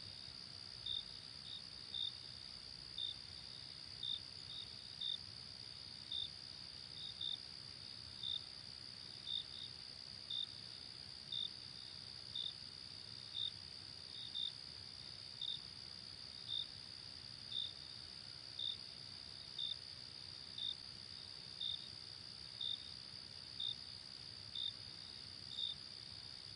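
Crickets chirping: a steady high trill runs underneath, with a louder short chirp about once a second, now and then two close together.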